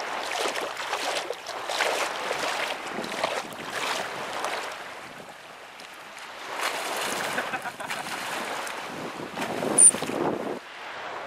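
Shallow seawater splashing and sloshing in uneven swells as a bottlenose dolphin swims and churns the surface right beside people wading, with wind on the microphone. A brief, sharp, very high-pitched blip sounds near the end.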